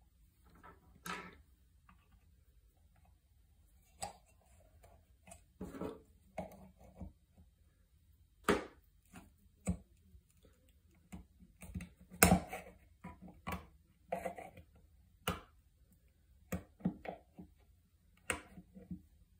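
Irregular clicks, taps and light scrapes of fingers and a small pointed metal tool working on a Rotax 377 rewind starter's plastic pulley and metal housing, with the sharpest click about twelve seconds in.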